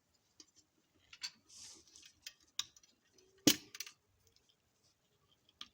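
Scattered small clicks and taps of plastic model-kit parts being handled and glued, with one sharper, louder click about three and a half seconds in.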